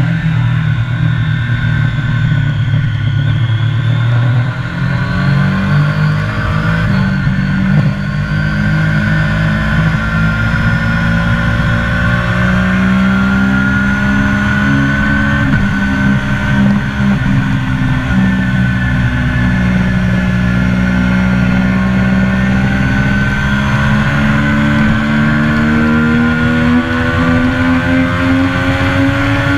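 A Triumph sport motorcycle's engine running hard at high revs, heard from on the bike with wind rush over the microphone. Its pitch shifts and steps with throttle and gear changes early on, then climbs steadily through a long pull over the second half.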